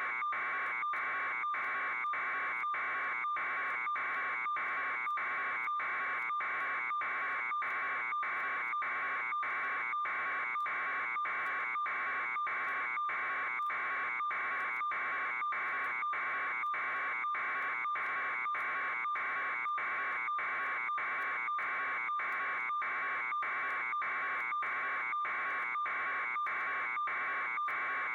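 Steady electronic buzzing, pulsing with brief regular breaks two to three times a second.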